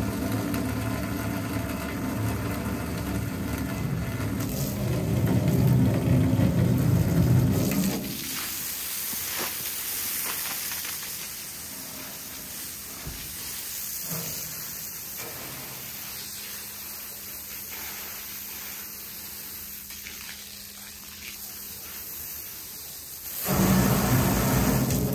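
Garden hose spraying water into a fuel tank and splashing out onto concrete, rinsing out degreaser and metal shavings. The spray is loud for the first eight seconds or so, drops to a softer hiss for most of the middle, and turns loud again near the end.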